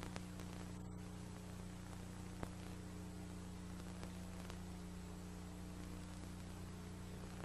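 Steady electrical mains hum from an idle stage sound system, with a faint hiss and a few light clicks.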